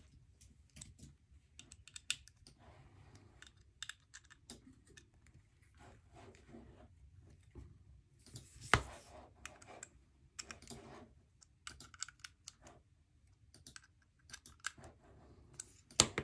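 Scattered small clicks and light taps of a precision screwdriver bit turning screws in a folding knife's handle, with one sharper click about halfway through and another near the end.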